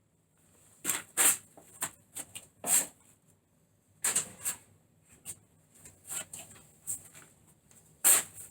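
Irregular clicks and knocks of hand tools and the Ryobi hinge template being handled and fitted onto the door, with the loudest knocks about a second in and near the end.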